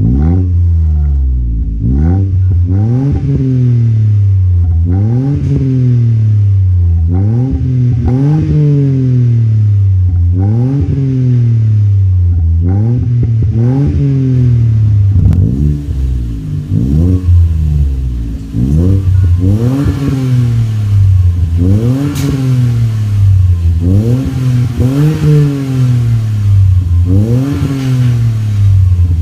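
2017 Kia Picanto engine revved again and again through an aftermarket cat-back exhaust, each blip rising quickly to around 5,000 rpm and falling back to idle, about every two seconds.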